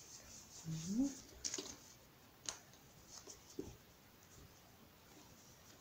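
Soft rustling and scraping of stretchy cotton sock loops being pulled through one another by hand in finger-knitting, with a few light clicks. About a second in, a brief rising hum of a voice.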